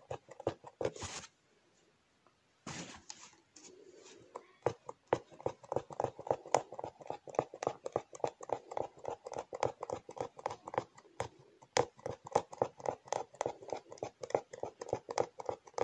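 Punch-needle embroidery: the needle is pushed stitch after stitch through fabric stretched tight in a wooden hoop, making a fast run of soft clicks, several a second.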